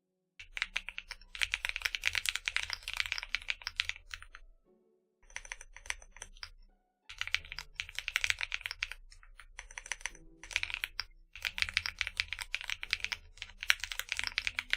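Fast typing on a custom 60% mechanical keyboard with AKKO Creamy Blue Pro V5 switches, PE foam and double-shot PBT keycaps in a Tofu60 Redux case with a brass weight: quick runs of key clacks in several bursts with brief pauses between them.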